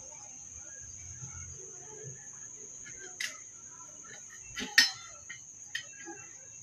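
A PCP air rifle's action is handled, giving three sharp clicks, the loudest about halfway. A steady high-pitched insect drone runs underneath.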